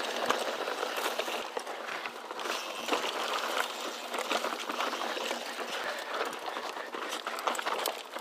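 Mountain bike rolling over rough dirt singletrack: a steady rough crunching hiss from the tyres, with irregular clicks and knocks from the bike over the bumps.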